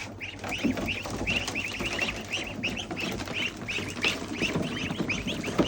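A group of ducklings peeping continuously, short high chirps several times a second.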